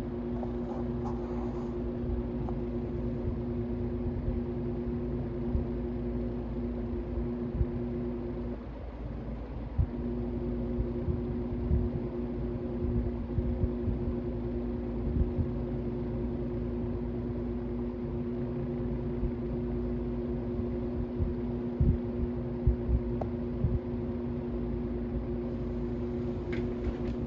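Vintage General Electric box fan running: a steady electric motor hum over a low rumble of moving air, with occasional light knocks. The hum drops out for about a second roughly a third of the way in, then comes back.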